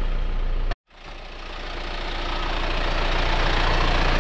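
Pickup truck on the move: engine and road noise with a steady low rumble, cut off abruptly under a second in, then tyre and road noise building steadily louder.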